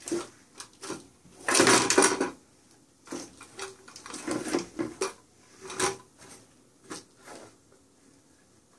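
Upturned plastic cat toy clattering and knocking on a hardwood floor as a cat paws at it: irregular clicks and knocks, busiest about two seconds in and again around the middle.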